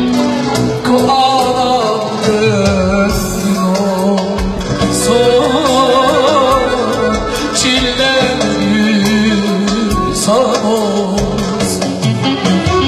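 Middle Eastern-style Turkish song between sung lines: an ornamented, wavering melody over a steady beat.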